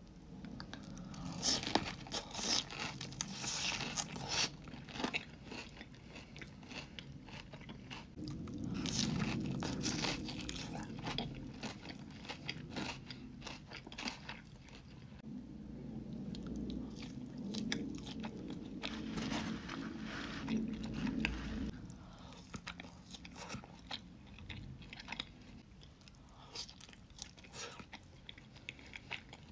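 Close-up crunching and chewing as a person bites into a crispy fried chicken tender dipped in ranch dressing. The crunches come in clusters in the first few seconds and again around nine to eleven seconds, and the chewing grows sparser in the last few seconds.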